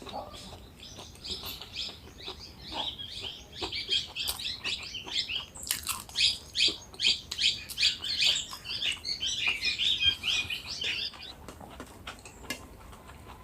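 Crisp papad being crunched and chewed close to the microphone: a rapid, dense run of crackling bites that eases off near the end.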